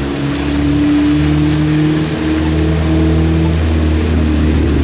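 Street traffic on a wet road: a vehicle engine running with a steady low hum, over the hiss of tyres on wet pavement.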